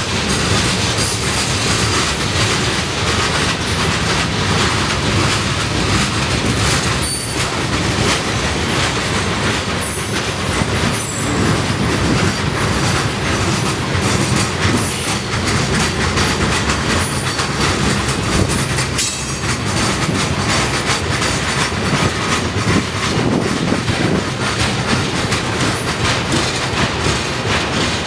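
CSX freight train's loaded centerbeam lumber cars rolling slowly past, steel wheels clattering and rumbling steadily over the rail joints, with short high wheel squeals now and then.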